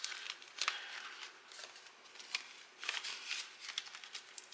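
Hands rustling a clear plastic binder pocket and paper banknotes: irregular crinkling and rustling with a few sharper crackles scattered through it.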